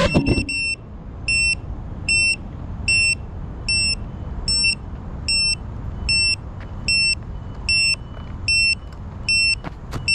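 An FPV racing drone's beeper sounding short, evenly spaced electronic beeps, about one every three-quarters of a second, while the drone sits on the ground: a lost-model locator alarm. A low outdoor rumble runs under it, and a few knocks come near the end as the drone is handled.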